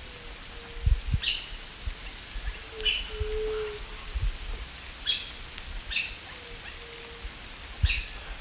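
Wild birds calling: short, sharp calls repeat every one to two seconds, and a low held tone sounds three times. Scattered low thumps run underneath.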